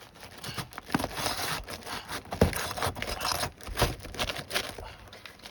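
Stuck, sealed-down asphalt roof shingles being forced up and pried loose: irregular scraping and tearing, with a few thumps about one, two and a half and four seconds in.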